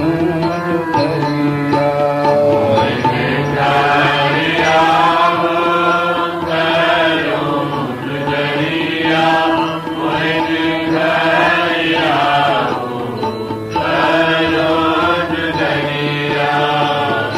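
Devotional shabad music: a melody that rises and falls over a steady low drone.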